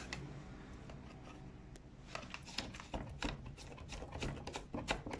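Faint, irregular light clicks and rubbing from hands handling things close to the phone, starting about two seconds in after a quiet stretch.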